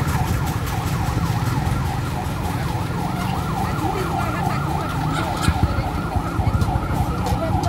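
Fire truck siren on a fast yelp, rising and falling several times a second, over the steady low rumble of the trucks' engines.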